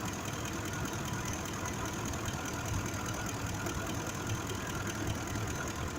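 2005 Ford F-150's 5.4-litre V8 idling steadily, with a misfire on cylinder 2 that the mechanic traces to a mechanically faulty fuel injector.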